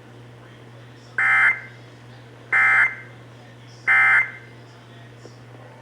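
Emergency Alert System End-of-Message signal: three short bursts of shrill digital SAME data tones, about a second apart, marking the end of the alert. A faint steady hum runs beneath them on the AM radio audio.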